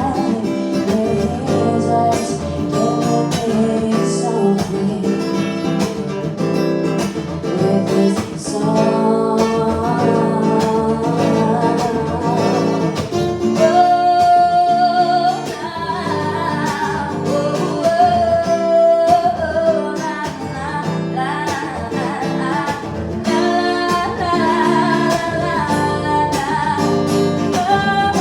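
Live singing to acoustic guitar, with the voice holding some long notes over steadily played chords.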